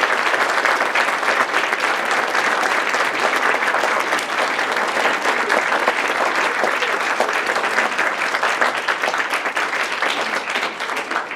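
Large audience applauding steadily, a dense mass of clapping that eases slightly near the end.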